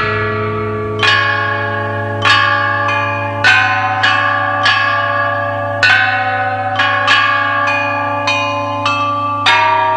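Bronze bianzhong chime bells struck one at a time in a slow melody, a new note about every second, each ringing on as the next is struck, over a steady low drone.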